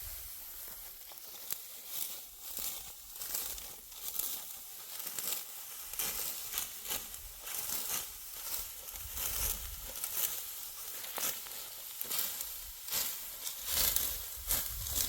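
Dry wheat stalks crackling and rustling in a string of short, irregular crisp strokes as the crop is worked by hand, with low wind rumble on the microphone at times.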